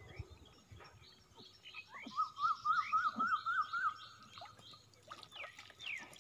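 A bird calling a quick series of about seven rising-and-falling notes lasting a couple of seconds, with other birds chirping around it and a few short falling whistles near the end.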